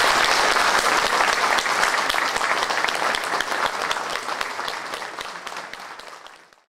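Audience applauding, a dense patter of many people clapping that gradually dies away near the end.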